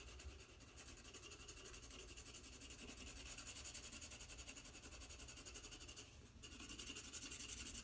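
White General's charcoal pencil rubbing on black drawing paper in fast, even back-and-forth shading strokes, laying in tone, with a short pause about six seconds in.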